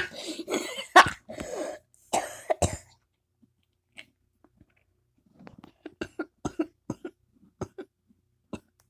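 Coughing: several loud, harsh coughs in the first three seconds, a pause, then a run of short, quieter coughs.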